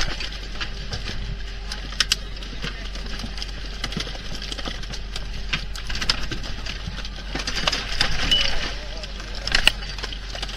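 Steady low drone of a fishing boat's engine, with a few sharp metallic knocks and clatter from gear being handled on deck. A man's voice mutters briefly near the end.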